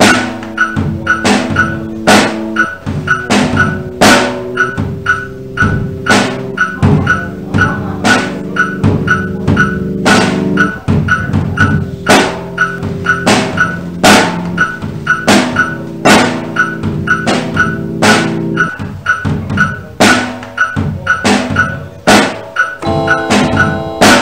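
Instrumental electronic hip-hop beat: a steady drum pattern over held low chords that change every few seconds, with higher keyboard notes coming in near the end.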